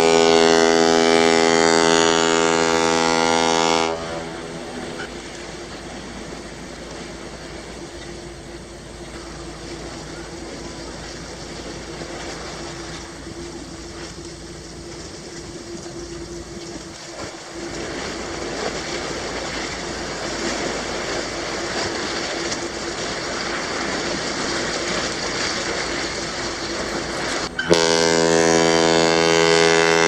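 Ship's horn sounding a long, loud blast that stops about four seconds in. A quieter, steady rushing noise with a faint hum follows, and near the end the horn sounds a second long blast.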